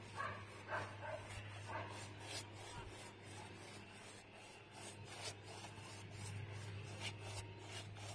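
A paintbrush rubbing across wooden boards in short strokes as brown paint is brushed on. A dog barks a few times in the first couple of seconds.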